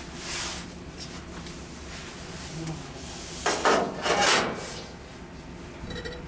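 Scraping and sliding of hard parts being handled at a furnace: a short rub near the start, then a louder, longer double scrape a little past the middle.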